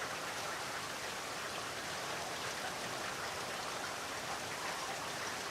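Steady rain falling, an even hiss of many small drops with no other sound over it.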